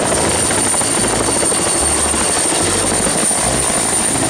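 Helicopter rotor and engine running steadily, a dense even noise with a thin steady high-pitched whine on top.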